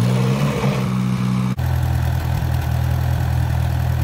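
Small farm tractor's engine running steadily. About one and a half seconds in there is a sudden break, after which it continues at a lower, steady idle.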